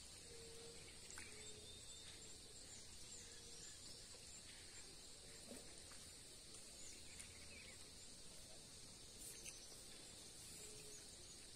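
Faint outdoor ambience: a steady high-pitched insect chorus, with a few soft short calls and faint ticks.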